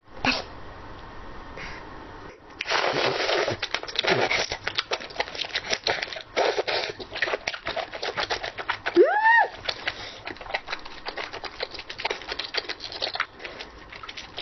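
Close-miked mouth sounds of chewing chewy cooked octopus tentacle: dense, irregular wet clicks and smacks. About nine seconds in there is a brief rising 'mm' hum.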